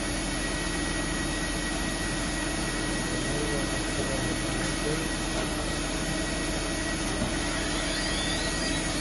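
Voumard 200 CNC internal grinder running: a steady whirring machine noise with a constant low hum and a constant high whine.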